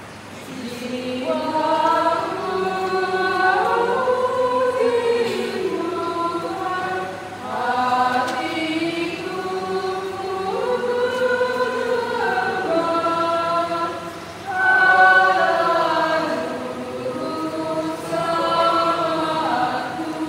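Church choir singing in sustained phrases, with short pauses about 7 and 14 seconds in.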